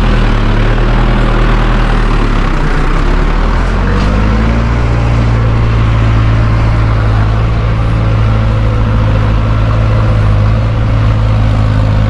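Mahindra Novo 605 4x4 tractor's diesel engine running as the tractor drives over loose dirt. The engine revs up about three to four seconds in, then holds a steady higher speed.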